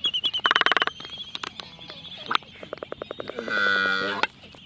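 Black-footed albatrosses calling: rapid clicking and bill-clacking under a thin, high whistle. About three and a half seconds in comes a loud, moaning call lasting under a second.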